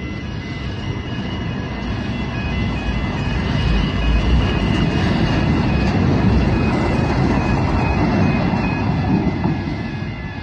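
Tyne and Wear Metro train passing over a level crossing: a low rumble builds to a peak midway and eases off near the end as the train clears. Over it the crossing's warning tones keep beeping, clearest at the start and half buried under the train.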